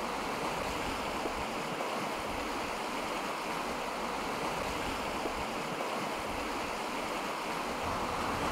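Steady, even rush of fast-flowing floodwater, with a car passing close by near the end.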